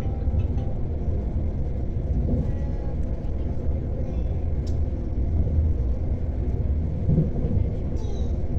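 Electric commuter train running along the track, heard from inside the carriage as a steady low rumble.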